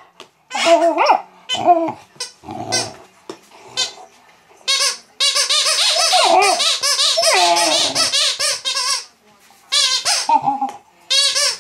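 Rubber squeaky toy squeaking in quick bursts as an English Mastiff puppy chews it, mixed with the puppy's own high, wavering squeaks back at it. A long run of rapid squeaks fills the middle for about four seconds.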